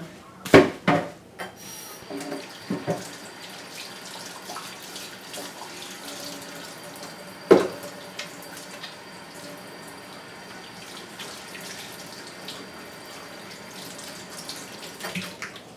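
Kitchen tap running into the sink while hands are washed under it. A few sharp knocks sound near the start and a loud one about halfway through.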